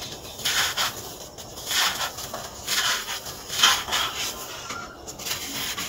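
Hands crushing a moulded chunk of dry sand-and-cement mix, giving gritty crunching and the hiss of sand trickling through the fingers. The sound comes in a series of bursts, about one a second.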